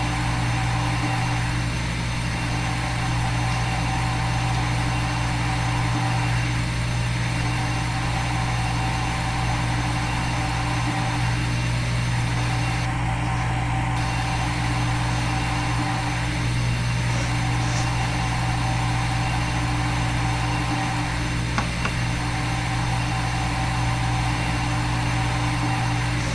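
Steady machine hum of a simulated CNC milling machine running its program, with a few steady tones and a slight break about every five seconds.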